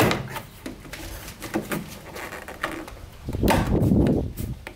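Plastic interior trim of a Sprinter van being worked loose by hand: a knock at the start, small clicks and rustles, then a louder stretch of scraping and rattling about three and a half seconds in, lasting about a second.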